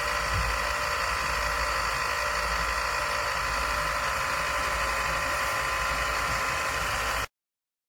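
MONSGA robot vacuum cleaner running, a steady motor hum with a whine, which cuts off abruptly near the end.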